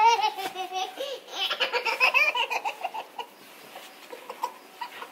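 A baby laughing in quick, high giggles for a couple of seconds, following a woman's drawn-out playful voice at the start; then it goes quieter.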